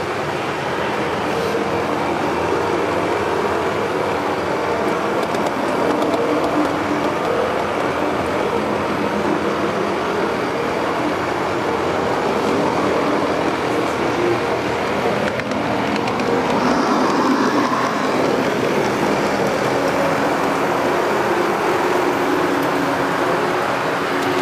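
O-scale model train rolling along the track: a steady rumble of wheels on the rails with the hum of its drive.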